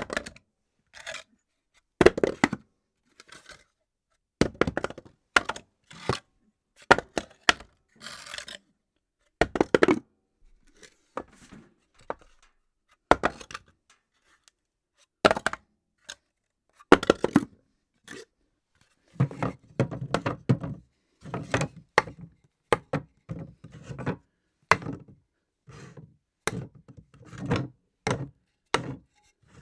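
Objects dropped onto a floor, one after another, each landing with a thunk. In the second half the drops come closer together, with bouncing clatter after the landings.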